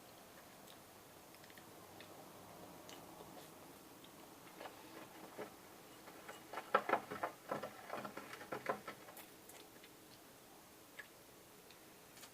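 Faint handling noises of sticky melted gummy-candy slime being worked in powdered sugar: a few scattered small clicks, then a denser run of clicks and crackles about six to nine seconds in.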